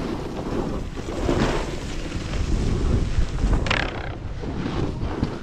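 Wind rushing over a moving action-camera microphone, mixed with the hiss and scrape of snowboards sliding over packed snow, swelling louder a couple of times.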